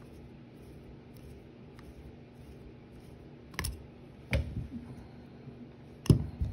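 Small clicks and knocks of a revolver's metal parts being handled as its hammer screw is taken out and the hammer is worked free of the frame: a sharp click a little past three and a half seconds in, a low knock about a second later, and the loudest knock near the end.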